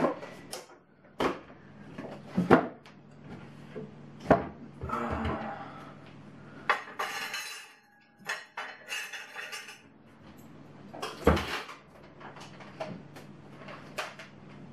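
Kitchen clatter as a hand mixer is taken out of its box and set up: scattered knocks and clinks of plastic and metal beaters on the counter, with stretches of rustling from the box and packaging.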